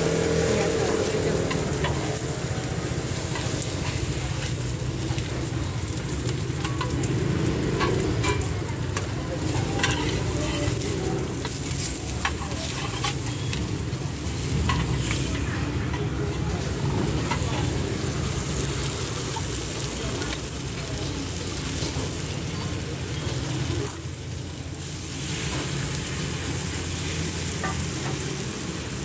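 Oyster omelettes sizzling as they fry in pork lard on a large round griddle pan, with frequent short clicks and scrapes of a metal spatula working them. A steady low hum runs underneath.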